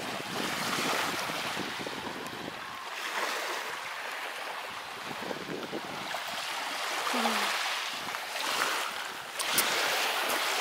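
Small waves lapping and washing onto a shingle beach, with wind buffeting the microphone.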